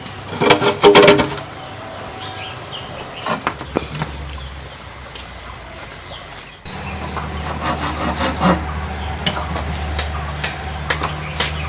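Hollow knocks and clatter of bamboo poles being handled and worked, loudest in a quick cluster about a second in, with a steady low hum under scattered knocks in the second half.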